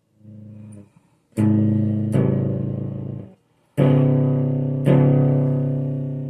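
Electric guitar played through a booster and fuzz effect pedal. A soft note comes first. A loud note or chord is struck about a second and a half in and held for about two seconds, then two more are struck about four and five seconds in and ring out slowly.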